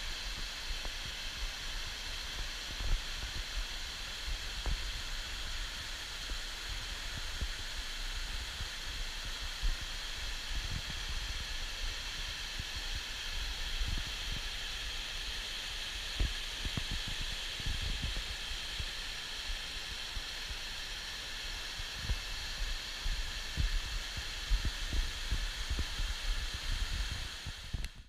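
Waterfall: a steady rushing hiss of falling water, with scattered irregular low thumps throughout.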